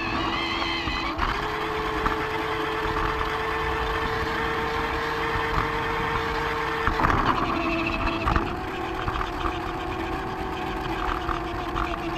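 Lego train's small electric motor running with a steady hum, wheels clicking over the track. The hum changes pitch about a second in and again about seven seconds in.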